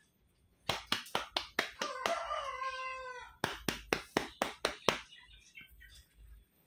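A quick run of sharp mouth clicks, about four a second, made to call a cat. It stops, then starts again. In the middle a long animal call of about a second and a half rises and then holds.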